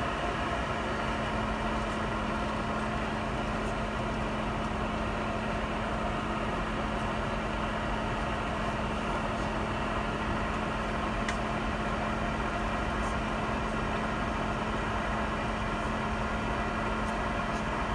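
Steady airliner cabin noise inside a Boeing 717-200 on the ground: an even rush of engine and air noise with a constant low hum, unchanging throughout.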